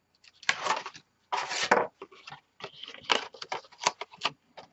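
Backing paper being peeled from craft tape in two short rasping pulls, then a run of light clicks and taps as chipboard pieces and a wooden-handled tool are handled and set down on the table.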